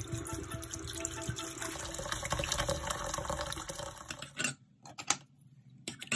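Water running and splashing for about four seconds, then a few sharp metallic clinks as brass handle plates are dropped into a stainless steel pan of water and vinegar.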